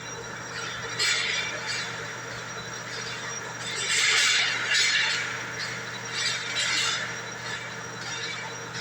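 Metal lathe running with a steady hum, broken by several bursts of harsh scraping and squealing from the cutting tool.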